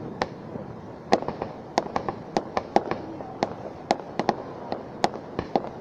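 Fireworks display: aerial shells bursting overhead in a quick, irregular string of sharp bangs, several a second, thickest after about a second in.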